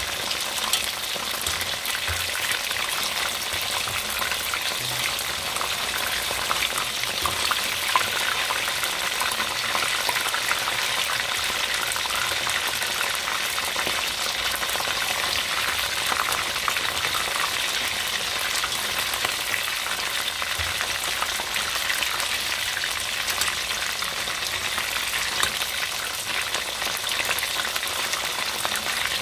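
Battered chicken wings deep-frying in hot oil in a pot: a steady sizzle thick with small crackles and pops, with a wire utensil stirring the pieces through the oil.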